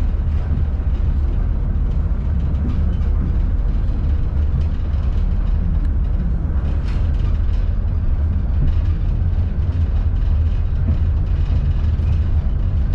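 Steady low rumble of a railway carriage running along the track, heard from inside the carriage, with a few faint clicks.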